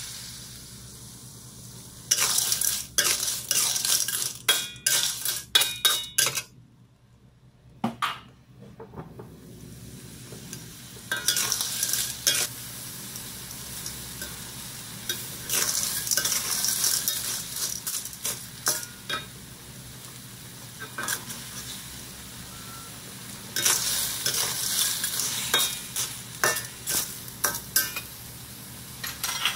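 Clams in their shells being stir-fried in a steel wok: a steady sizzle, broken by repeated spells of a metal spatula scraping the wok and shells clattering against it. It goes almost quiet for a couple of seconds about seven seconds in.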